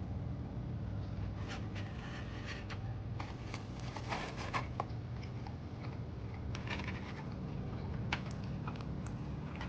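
Utensils scraping and clicking in short scattered strokes while cutting into a baked pork chop, over a steady low hum of room noise.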